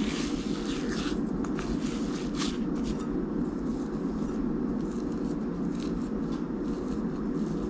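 Hands working a soft, sticky almond-flour dough in a bowl, giving short irregular scraping and squishing rustles. A steady low hum runs underneath.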